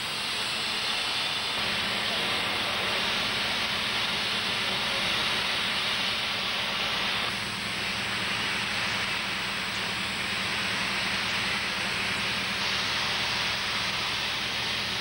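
Abrasive blasting of a steel ship hull: a steady hiss of compressed air and grit from the blast nozzle.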